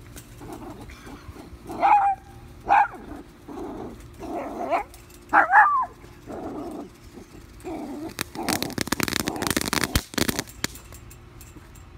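Small dogs yipping and barking, several short high calls with a whiny rise and fall, at a smoking firework in the grass. Near the end comes about two seconds of dense crackling and rustling.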